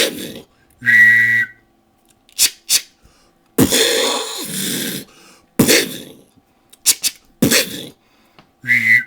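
A beatboxer's mouth-made gunshot effects: a string of sharp explosive pops and throaty bursts, one longer rushing blast a few seconds in, and two short sounds, one about a second in and one near the end, that whistle and hum from the throat at the same time.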